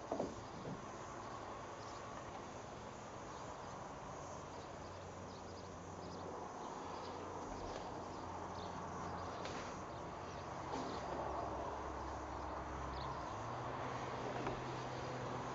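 Outdoor ambience with insects chirping steadily in the surrounding bush, and a couple of short thumps right at the start.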